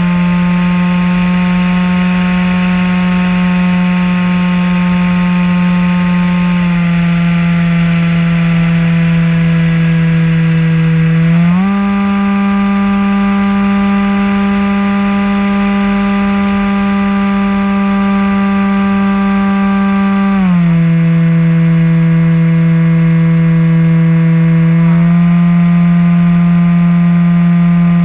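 Propeller motor of a Maxi-Swift RC flying wing running steadily in flight, a loud even hum. Its pitch steps down slightly about seven seconds in, jumps up about eleven seconds in, drops back about twenty seconds in, and rises a little near the end as the throttle is changed.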